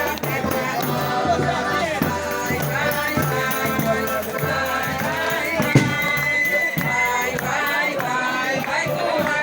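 A group of voices singing a São João folk devotional song together, accompanied by steadily shaken and struck hand percussion such as a tambourine. A single sharp knock stands out about six seconds in.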